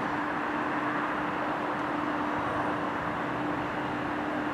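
Class 350 Desiro electric multiple unit approaching at a distance, a steady rolling noise under a constant hum.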